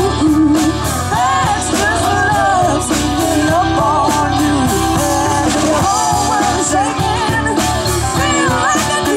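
Live rock band performing: female and male vocalists singing over electric guitars, keyboard and drum kit.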